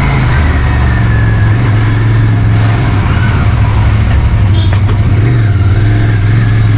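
Royal Enfield Continental GT 650 motorcycle engine running steadily as the bike cruises along, heard from the rider's seat with wind rushing over the microphone.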